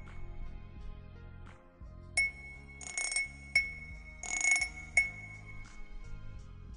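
Background music, with bright chime strikes ringing out about five times from two seconds in; two of them come with a brief shimmering rattle.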